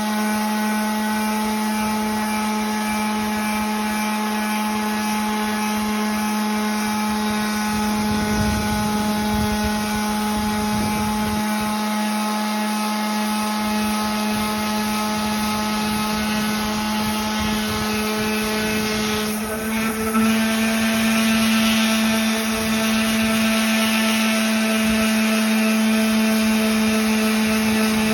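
Electric power tool sanding wood, its motor running with a steady hum. About twenty seconds in the sound briefly dips, then runs a little louder with more hiss.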